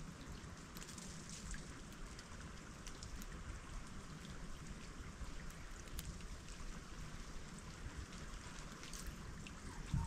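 Melting ice dripping and trickling, with many small scattered ticks and drips over a steady low rush.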